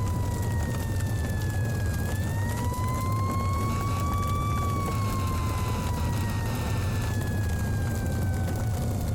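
An emergency vehicle's siren in a slow wail: its pitch falls, rises for about two and a half seconds, then falls slowly again and begins to rise near the end. A steady low rumble lies under it.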